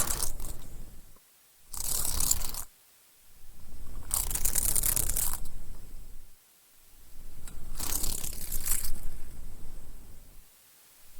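Repeated bursts of rustling, scraping noise, each about a second long, with short silent gaps between them.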